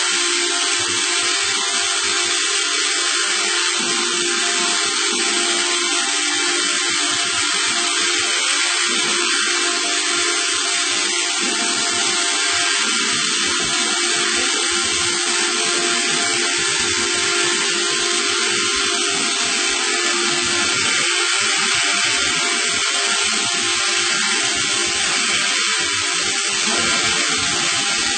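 A machine running steadily: an even, loud hiss with a constant low hum beneath it that does not change.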